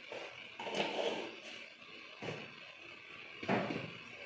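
A few soft, scattered thumps and knocks of kitchen things being handled.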